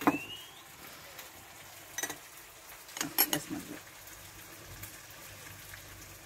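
Lemon being squeezed by hand over a small glass bowl: a sharp knock at the start, then a burst of squelching and dripping juice about three seconds in.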